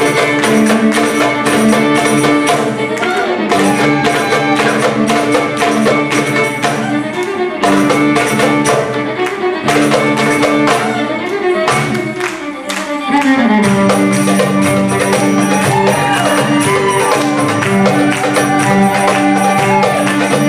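Live band music, violin playing a Middle Eastern–style melody over band accompaniment with steady percussion strokes. The music thins briefly about two thirds of the way in, then the violin slides up into new held notes.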